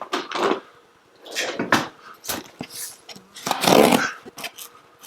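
A cardboard shipping box being handled: a string of scraping, rustling noises and sharp knocks, the loudest scrape about three and a half seconds in.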